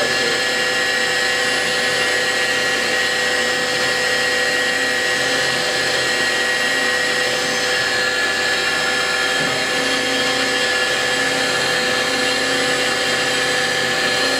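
Okuma LB-15M Mark II CNC lathe's spindle running at a steady speed with a chucked workpiece: a steady machine whine made of several fixed tones over a hum, not changing in pitch or level.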